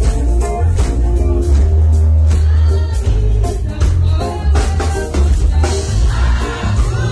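Live Kalenjin gospel song: a woman leads on a microphone while a group of women sing along, over amplified backing music with a heavy bass and a steady beat.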